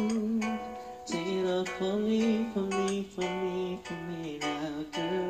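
Karaoke singing: a voice holding soft, wavering 'ooh' notes through a microphone over a plucked acoustic-guitar backing track, in the closing bars of the song.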